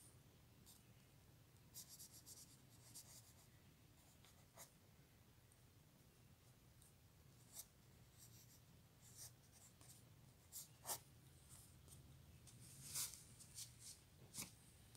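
Pencil sketching on paper: faint scratchy strokes in short bursts and quick clusters, with pauses between, over a faint low hum.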